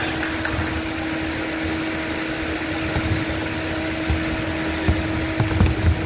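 A steady mechanical hum with a basketball bouncing on a hardwood court: a few dull thuds in the last two seconds.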